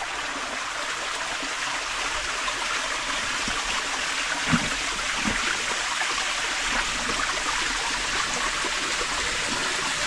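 Water rushing and trickling steadily in a cave from an underground stream and waterfall, growing slightly louder. Two dull knocks about halfway through.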